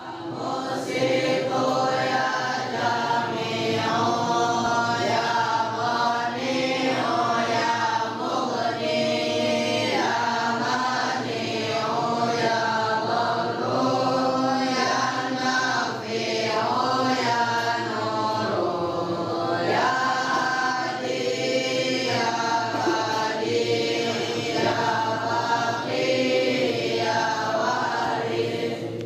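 A group of voices chanting together in a melodic, choir-like chant, phrase after phrase.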